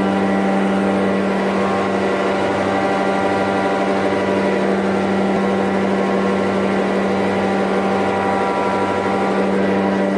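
Large old engine running steadily with a constant low hum and an even slow beat about one and a half times a second.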